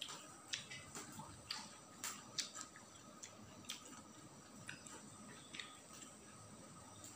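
Faint, irregular wet clicks and smacks of a person chewing a mouthful of food with an open mouth.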